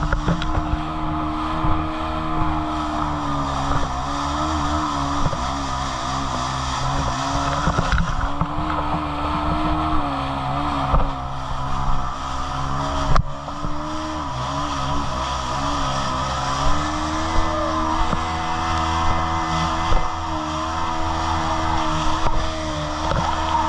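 Jet ski engine running under throttle, its pitch dipping and rising a few times as the throttle changes, with water rushing and spraying around the hull.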